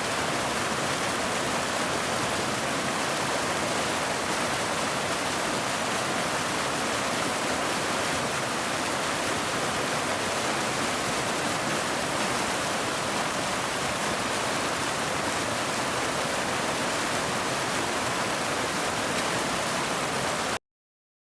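Waterfall: a steady, even rush of falling water that stops abruptly near the end.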